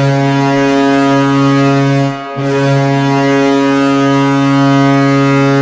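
Toronto Maple Leafs arena goal horn blowing a loud, low, steady blast, broken by a brief gap about two seconds in and then held again.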